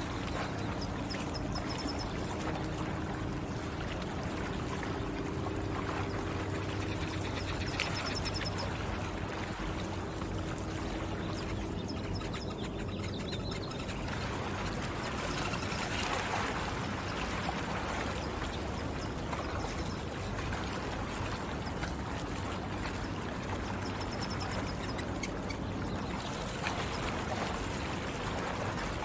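Water running and lapping gently along a stony shore, a steady wash of noise. A low steady hum sits under it and stops about halfway through, and a few faint high chirps come and go.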